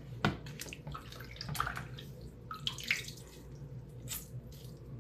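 Bath water splashing and dripping in short, scattered bursts as a child is washed in a small tub.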